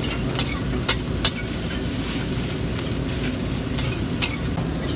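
Food sizzling in a hot wok while it is stir-fried, with a steady low rumble beneath. A metal spatula clanks sharply against the wok about six times, four of them in the first second and a half.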